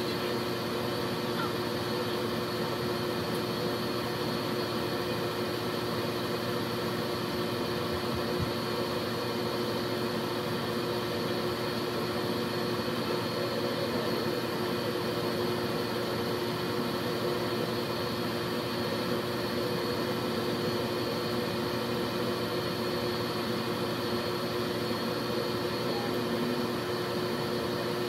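Aeon Mira 9 CO2 laser engraver running while it engraves: a steady machine hum and whir with a constant drone of a few fixed tones, unchanging throughout.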